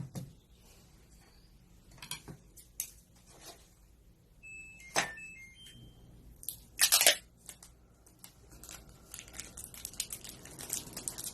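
Close handling noises: scattered clicks and rustling, with a short rasping, scraping burst about seven seconds in that is the loudest sound, and a few brief high chirping tones around five seconds.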